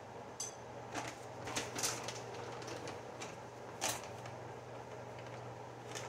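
A crinkly plastic bag of shredded mozzarella being handled and tipped out, giving a series of short, sharp crackles, the loudest about two seconds and four seconds in. A steady low hum runs underneath.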